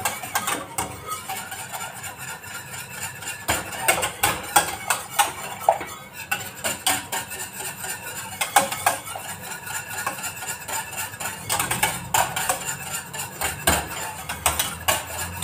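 Wire whisk beating and scraping around the inside of a stainless steel saucepan, a rapid, continuous clinking as a powdered caramel pudding mix and water are whisked hard to keep it from clumping.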